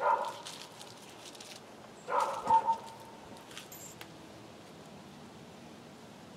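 A dog barking: one short bark at the start and a second, longer one about two seconds in.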